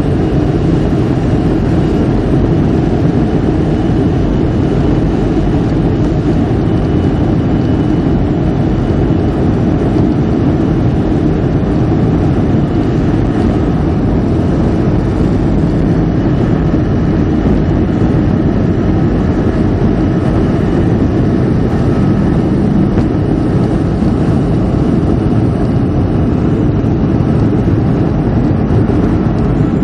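Boeing 737-500's CFM56 turbofans at takeoff power, heard inside the cabin over the wing during the takeoff roll: a loud, steady, deep roar with a faint high whine on top.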